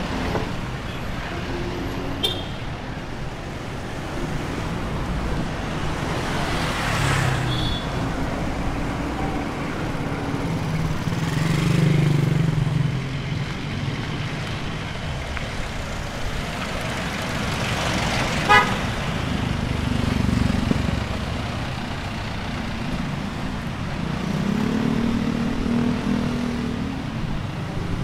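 Street traffic: motor vehicle engines running and passing one after another, swelling and fading, with a short horn toot about two-thirds of the way through.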